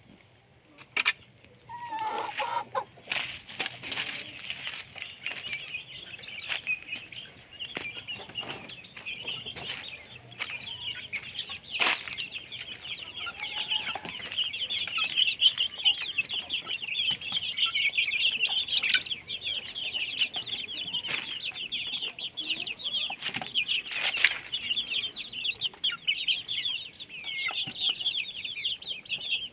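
A flock of chickens in a wire-netted run: many young chicks peeping continuously, high-pitched and thickening from about midway, with hens clucking. A few sharp knocks break in now and then.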